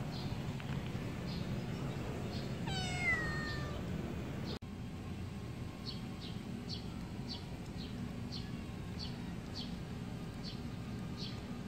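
A young cat meows once about three seconds in, a single falling cry. After a break, a cat eating from a plastic tub makes short chewing clicks, about two a second.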